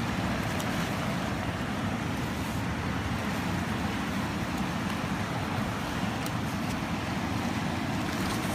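Steady rush of a fast mountain river flowing over stones, with a few faint clicks.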